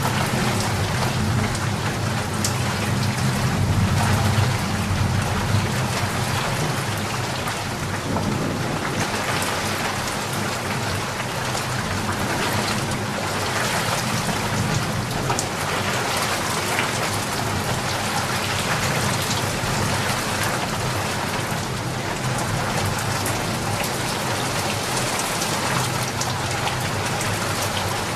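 Steady heavy rain falling, with a low rumble of thunder through the first several seconds that comes back near the end.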